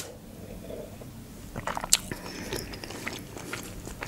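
Close-up mouth sounds of eating: swallowing a drink from a plastic bottle, then chewing with scattered soft clicks and crunches, most of them between about one and a half and two and a half seconds in.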